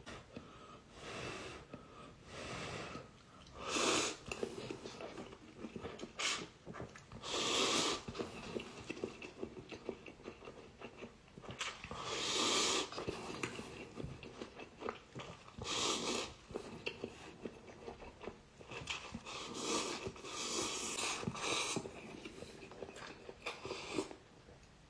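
A person eating cup instant noodles: loud slurps, about half a second to a second each, come every few seconds, with chewing in between.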